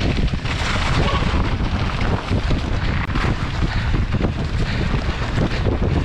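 Wind buffeting an action camera's microphone on a fast mountain-bike descent, with the continuous clatter and rumble of the bike's tyres and frame over rough, rocky ground.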